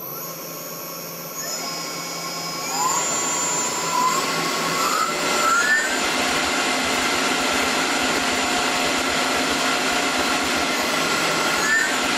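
Tormach PCNC 1100 mill's belt-driven spindle on new bearings, started at low RPM and stepped up in speed a few times in the first half, each step a short rising whine, then running steadily with a smooth, even whine.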